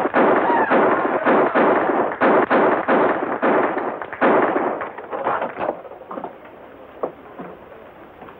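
Firecrackers going off in a rapid, irregular string over crowd noise, dying away about five seconds in, with a few scattered pops after.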